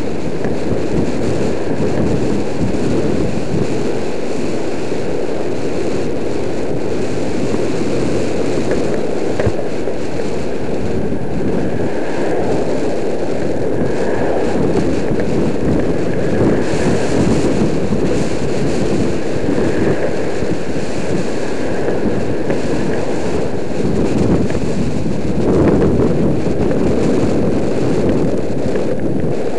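Steady rush of wind noise on a helmet camera's microphone from a bicycle riding along, mixed with road noise.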